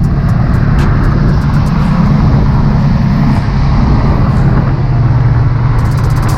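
A car running steadily with an even, low drone.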